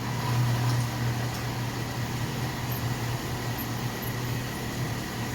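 A steady low mechanical hum with a faint constant whine above it.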